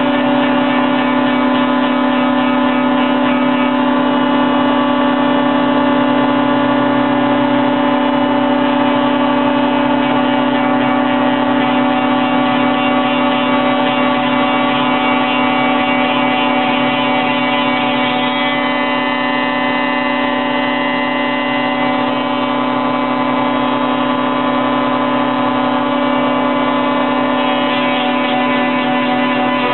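Woodworking spindle moulder running at speed with a steady whine, its cutter block cutting a profile along a pine board fed past it.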